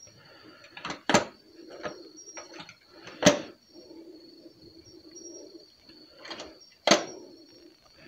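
Tools being handled in a roll-cabinet drawer: three sharp clacks, about two and three-and-a-half seconds apart, with softer clicks between them.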